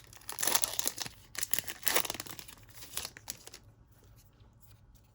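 Foil wrapper of a baseball card pack being torn open and crinkled for about three and a half seconds, then only faint handling ticks.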